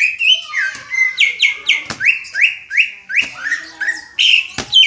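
Greater green leafbird (cucak ijo) singing a quick run of short, rising whistled notes, about three a second, with a few sharp knocks in between.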